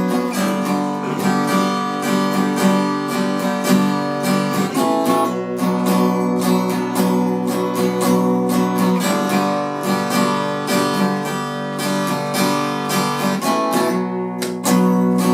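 Acoustic guitar strummed in a steady rhythm, changing chords every few seconds, with no singing yet.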